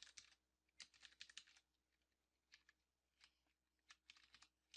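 Faint computer keyboard typing: scattered keystrokes that come in small irregular clusters, with gaps between them.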